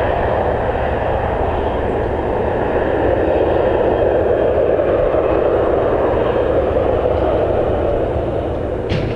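Jet airliner engines running steadily, a broad even rush, with a short sharp click just before the end.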